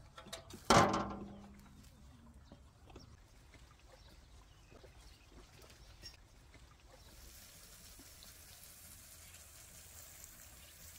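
A single loud metallic clang with a brief ring about a second in, at an irrigation valve pit with a metal lid. Faint clicks and a soft trickle follow as the valve handwheel is turned, then from about seven seconds a steady hiss.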